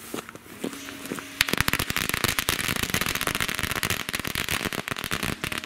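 A 300-shot firecracker chain going off: a fast, dense string of cracks that starts about a second and a half in, runs for about four seconds and fades out near the end.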